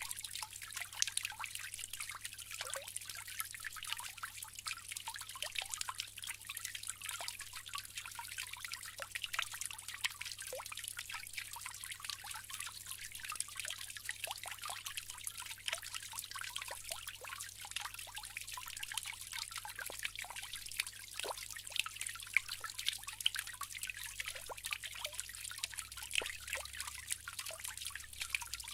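Water trickling steadily from a bamboo fountain spout, with many small irregular splashes and drips.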